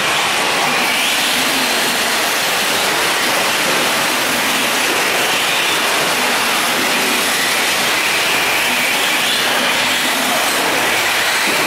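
Several electric 4WD short-course RC trucks racing on a dirt track: a steady wash of high-pitched motor and gear whine that rises and falls as the trucks accelerate and brake.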